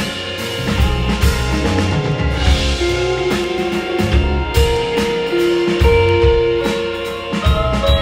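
Live band music from an electric guitar, bass guitar and drum kit, the guitar holding long melody notes over steady drum hits.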